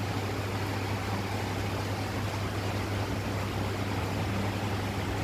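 Steady low hum under an even hiss from aquarium air pumps and aeration running in the display tanks.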